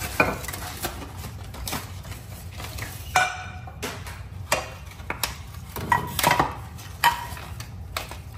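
Granite-coated cookware being handled: pots, lids and pans knocked and set against each other in a string of clinks and knocks, several ringing briefly, the clearest about three seconds in.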